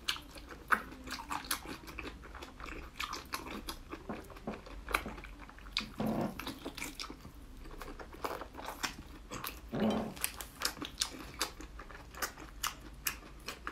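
Close-up mouth sounds of a person biting and chewing soft braised intestines: many wet clicks and smacks at an irregular pace, with two longer, lower mouth sounds about six and ten seconds in.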